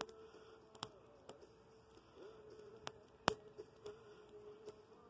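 Wood fire of dead tree branches burning in a small kettle-grill bowl, crackling with about seven sharp pops at irregular intervals, the loudest a little past three seconds in.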